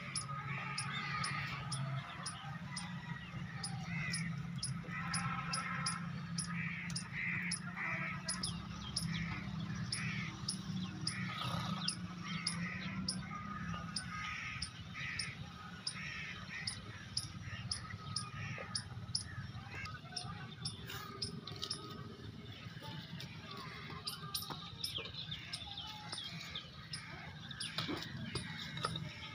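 Crows cawing over and over, about one call a second through the first half and more sparsely after, over a low steady hum that fades out about halfway through.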